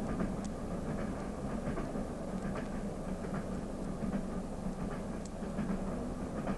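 A steady low rumble with a humming undertone and faint scattered clicks.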